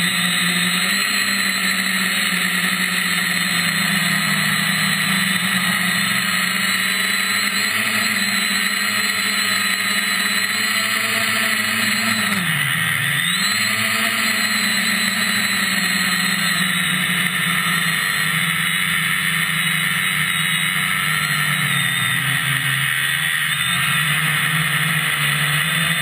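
MT2206 brushless motors of a quadcopter whining steadily, heard close from the craft's own camera. About twelve seconds in the pitch drops sharply as the throttle is chopped, then climbs straight back as it is punched again.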